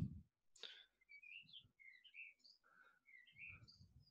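Near silence with faint bird chirps in the background: short, scattered calls.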